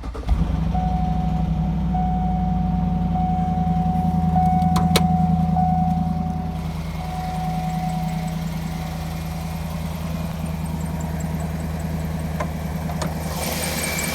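2009 Cadillac Escalade's 6.2-litre V8 starting and idling, at a higher idle for about six seconds before settling lower, with a light ticking that the owner takes for a lifter tick.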